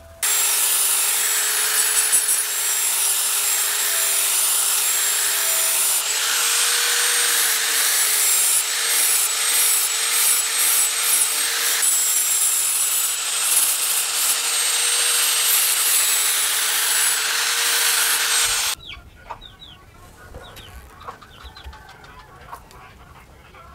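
Electric angle grinder running with its disc grinding the edge of a spring-steel knife blade: a steady high motor whine over a grinding hiss. It stops about nineteen seconds in, leaving only faint clicks of the blade being handled.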